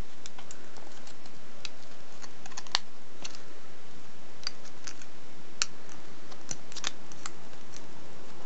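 Thin gold foil chocolate-coin wrapper crinkling in the fingers as its corners are folded over: short, sharp crackles and clicks at irregular moments, a dozen or so.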